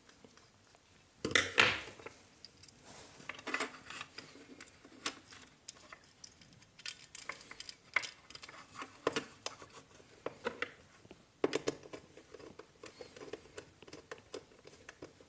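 Small scattered clicks, taps and scrapes of a screwdriver working the terminal screw of a plastic bulb holder while a wire is fitted into the terminal, with a louder handling bump about one and a half seconds in.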